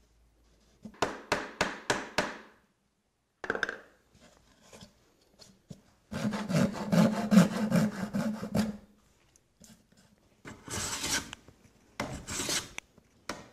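Paper towel rubbing and wiping along the joints of a wooden mahogany box. Near the end come two strokes of a metal hand plane shaving the mahogany edge.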